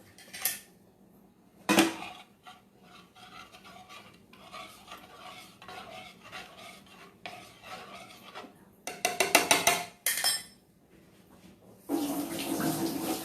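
Kitchen utensils knocking and clinking against dishes while a homemade turmeric remedy is handled: a sharp knock about two seconds in, quieter scattered clatter, and a quick run of clinks around nine seconds.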